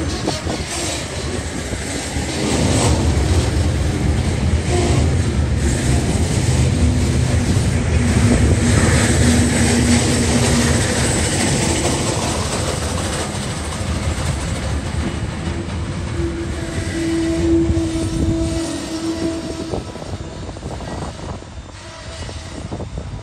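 Coal hopper wagons of a freight train rolling past, steel wheels rumbling on the rails with repeated clicks from the wheels. The sound fades over the last few seconds as the end of the train moves away.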